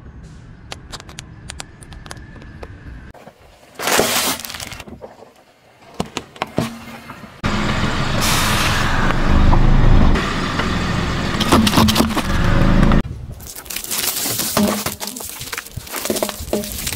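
A car tyre rolling slowly over asphalt and crushing sweets one after another, sugar flowers, a chocolate wafer bar and a heap of lollipops, under the low rumble of the tyre. It comes as sharp cracks, a loud crunch about four seconds in, a long loud grinding crunch in the middle, and crackling snaps near the end.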